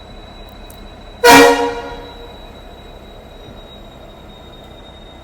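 A short, loud pneumatic blast with a pitched tone, about a second in, fading over under a second, over a steady workshop hum with a faint high whine.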